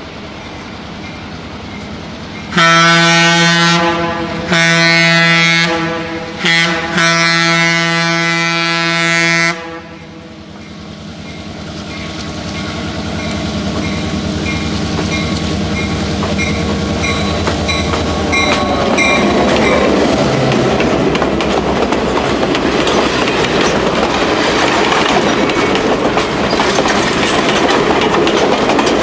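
EMD F7 diesel locomotive sounding its multi-tone air horn in the long, long, short, long grade-crossing pattern, then running up close as the train passes. Its passenger cars follow with the clickety-clack of wheels over rail joints.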